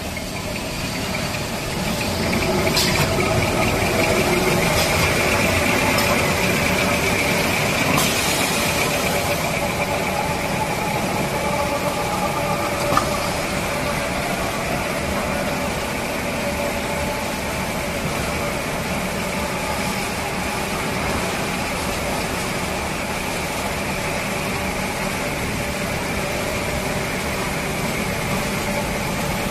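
Toilet paper and kitchen towel converting machinery running: a steady mechanical drone with a high, even whine and lower hums, growing a little louder a couple of seconds in. One sharp click about thirteen seconds in.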